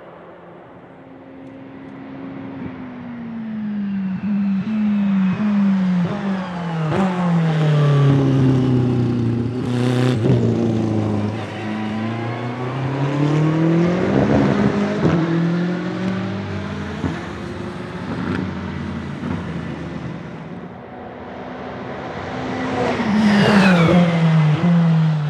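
Aston Martin Vantage GTE's 4.0-litre twin-turbo V8 race engine braking into a corner, its pitch stepping down through a run of downshifts with a few sharp cracks, then accelerating hard out of the corner with the pitch climbing. Near the end the car comes past at speed, the engine loud and rising steeply.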